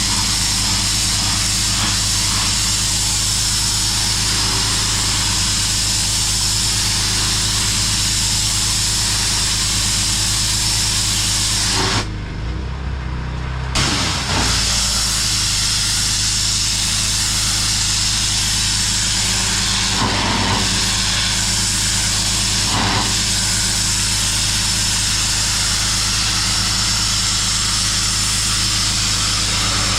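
Pressure washer running steadily, its motor's even hum under the loud hiss of the high-pressure water jet blasting concrete. Near the middle the spray cuts off for about two seconds while the motor keeps running, then the jet starts again.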